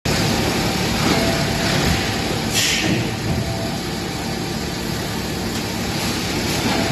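Plastic cup thermoforming production line running with a steady mechanical hum and noise, and a short hiss about two and a half seconds in.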